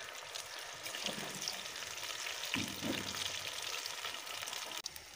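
Potato fries freshly added to hot ghee in a karahi, deep-frying with a steady sizzle and crackling bubbles. The sizzle drops a little quieter near the end.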